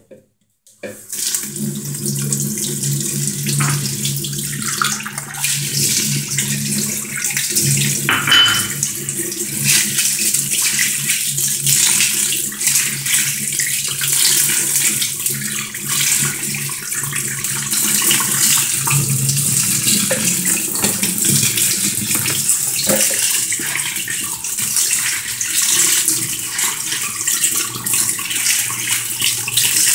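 Tap water running steadily into a sink onto green lentils in a plastic colander as they are rinsed by hand. The water comes on suddenly about a second in.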